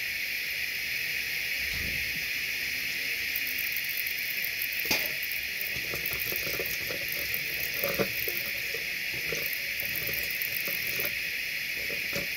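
Steady background hiss, with a few faint scattered clicks and rustles.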